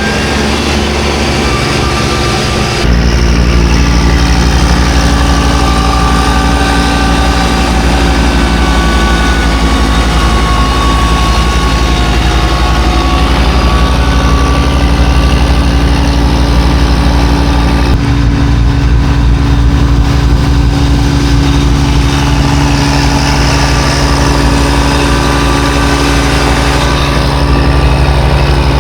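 A heavy engine running steadily. It gets louder about three seconds in and changes tone about eighteen seconds in, as if going under load.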